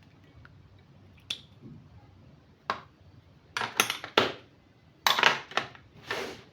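Small metal tools and their plastic case being handled: scattered sharp clicks and clatters, sparse at first and busier in the second half.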